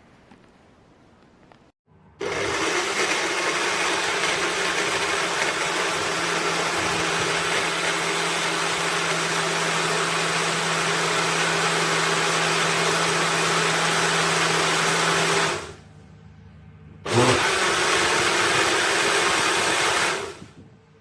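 Compact 400 W juicer-blender's motor running at speed for about thirteen seconds with a steady whir, stopping, then running again for about three seconds.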